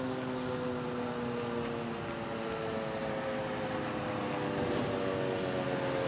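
Federal Signal 2001-SRNB electromechanical rotating siren winding down after its steady alert signal: its chord of tones slides slowly and steadily lower.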